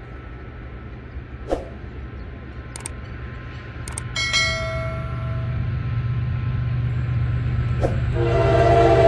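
General Electric diesel locomotive approaching, its low engine rumble growing steadily louder; about eight seconds in its horn starts sounding a loud chord. Midway, two mouse clicks and a short bell chime from a subscribe-button animation.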